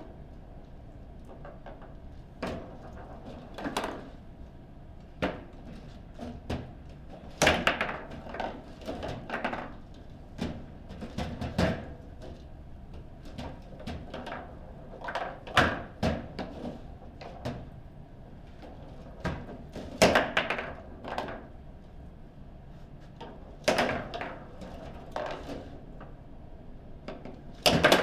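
Table football being played: the ball is struck by the plastic figures and knocks against the table walls while the rods clack, giving irregular sharp knocks with a few much louder shots.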